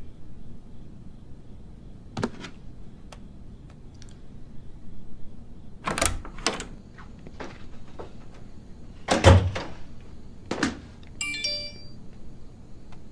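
A wooden room door being handled: latch and handle clicks, then the door shutting with a thud about nine seconds in, the loudest sound. Soon after comes a short electronic chime, a phone's message alert.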